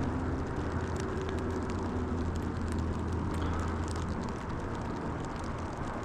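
Light rain ticking on a rain poncho, over a steady low rumble.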